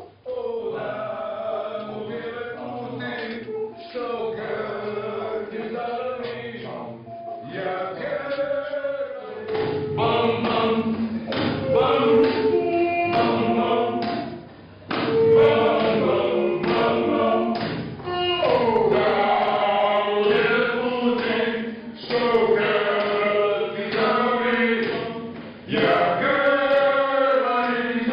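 A choir singing, the voices sliding in pitch through phrases broken by short pauses.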